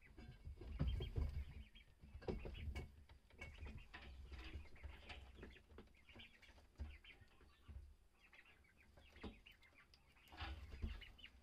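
Faint, rapid high peeping of Muscovy ducklings in the nest, many short chirps overlapping, with low rumbling thumps now and then.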